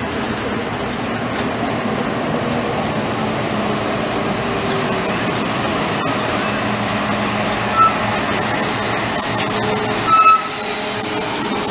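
Diesel engine of an MCI highway coach running as the coach pulls in slowly, with two short high squeals, as of brakes, about eight and ten seconds in.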